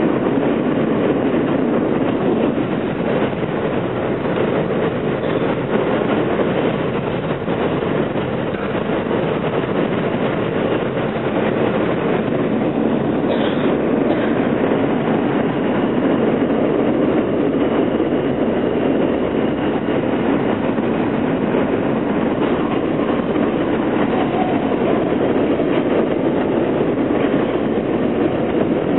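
Inside an R160A-2 subway car with Alstom propulsion, running slowly on elevated track: a steady rumble of wheels on rail with clickety-clack over the joints. A brief high squeal comes about halfway through.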